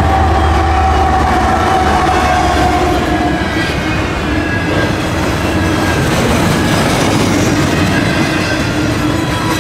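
Canadian Pacific double-stack container freight train passing close at speed, its wheels rumbling and clacking steadily over the rails with a thin metallic whine. A mid-train locomotive's engine hum is heard at first and fades after about three seconds.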